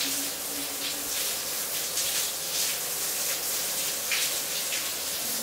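Shower running: a steady hiss of water spraying.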